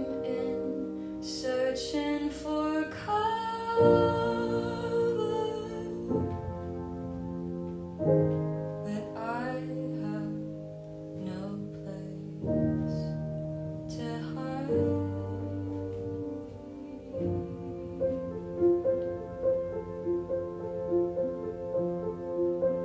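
A woman singing to her own piano accompaniment. Her voice comes in phrases over held piano chords, then drops out about two-thirds of the way in, and the piano plays on alone with repeated notes.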